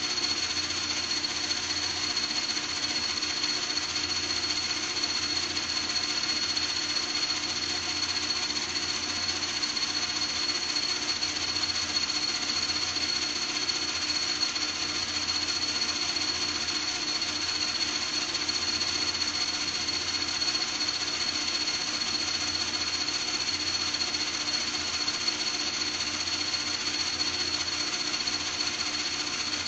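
A motor or power tool running steadily and without a break, with a constant high whine over a lower hum.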